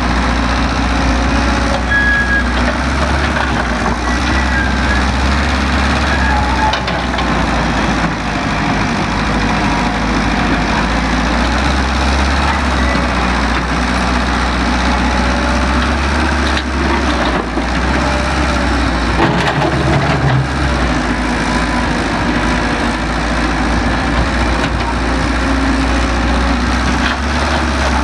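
Heavy construction machinery running steadily, an engine's constant low drone under a rough mechanical noise.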